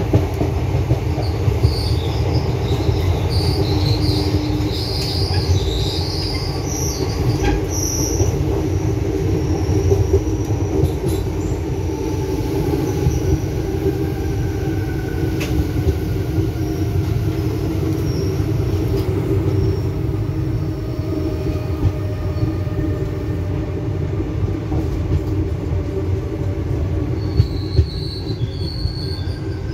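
Express passenger train running at speed, heard from inside a coach at an open doorway: a steady loud rumble of wheels on rail. There is high-pitched wheel squeal over the first several seconds and again near the end, and a faint whine that slowly falls in pitch through the middle.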